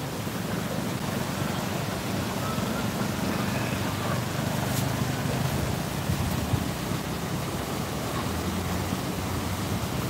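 River water rushing over rocks and shallow rapids: a steady, even noise with no break.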